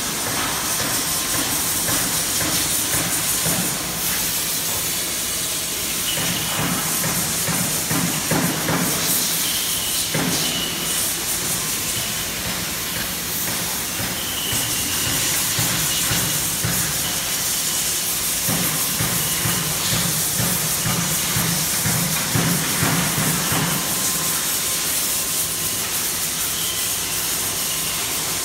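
Heavy-duty CNC machining center running: a steady loud hiss throughout. A lower rumble swells twice, about six seconds in for some five seconds and again from about eighteen seconds for some five seconds.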